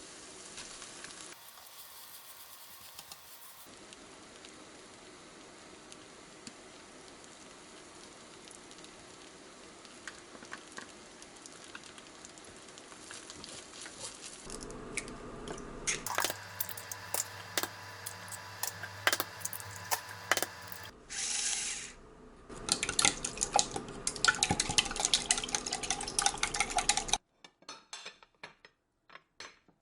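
Food sizzling in a frying pan while a utensil stirs it, with frequent sharp clinks and scrapes of metal against the pan, most of them in the second half. The sound changes abruptly several times.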